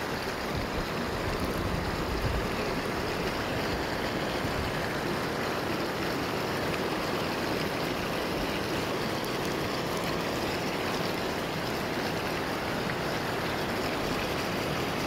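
Shallow river current rushing over stones: a steady, even wash of water.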